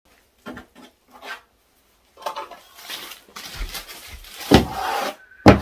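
Building work in a small room: a few light knocks, then scraping and rubbing with knocks, and two heavy thuds near the end.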